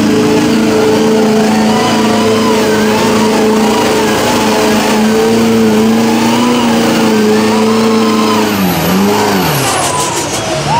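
Lifted Chevrolet Silverado mud truck's engine held at high revs as it drives through the mud pit. About nine seconds in, the revs drop, pick up briefly and fall away.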